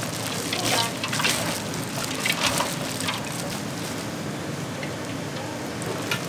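Chicken feet sizzling on a wire grill over a coal briquette fire, with many scattered crackles.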